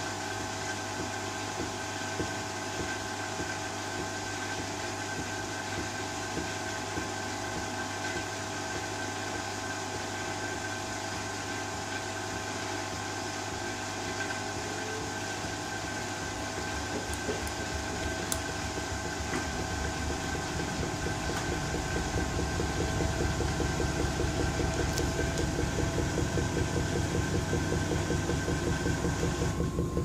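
Front-loading washing machine running with a load of Birkenstock sandals in the drum: a steady motor hum with a few steady tones. About two-thirds of the way through it speeds up and grows louder, with a fast even pulse as the drum picks up speed.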